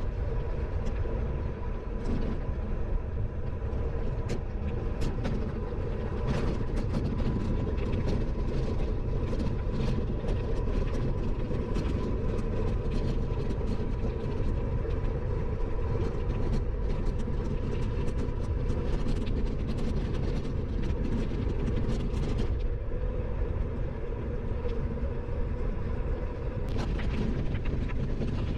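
Bicycle being ridden along a path: a steady rolling rumble from the tyres, with constant rattling and ticking from the bike and a faint steady whine. The rattling eases for a few seconds near the end.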